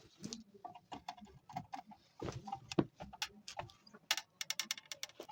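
Irregular sharp clicks and light knocks of hard parts being handled, with a fast run of clicks, about ten a second, about four seconds in.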